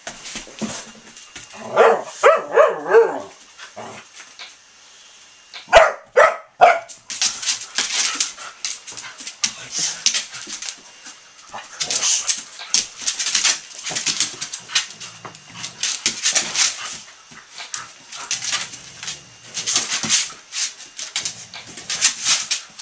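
A pit bull and a puppy play-fighting over a slipper: a run of whining calls about two seconds in and a few sharp barks around six seconds in, then a long stretch of scuffling and scrabbling as they tussle.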